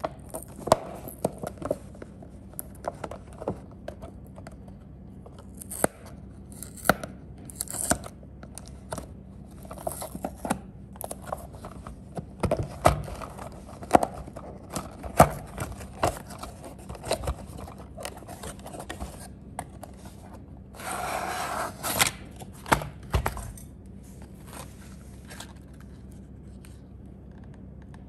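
Cardboard retail box of a die-cast model car being opened by hand: scattered sharp taps, clicks and scrapes as the end flap is prised and the card tray slid out, with a longer stretch of cardboard tearing and rubbing about three-quarters of the way through.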